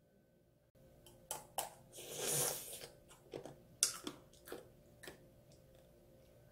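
A child biting into a candied strawberry tanghulu: scattered sharp clicks and cracks of the hard sugar shell between the teeth, with a short rustling burst about two seconds in.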